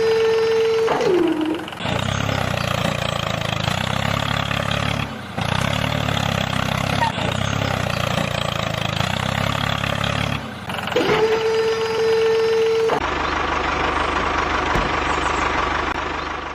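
Tractor engine running steadily. A held tone glides in and drops away near the start, then comes again about eleven seconds in. From about thirteen seconds in the sound turns rougher and hissier.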